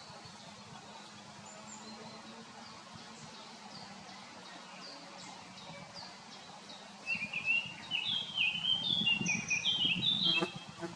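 Songbirds singing: a high, thin note repeated about twice a second, then from about seven seconds in a louder, quicker song of varied notes that ends shortly before the close.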